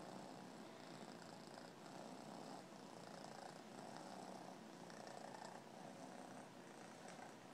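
Domestic cat purring steadily and quietly close to the microphone, the purr swelling and easing in a slow rhythm about once a second as the cat breathes.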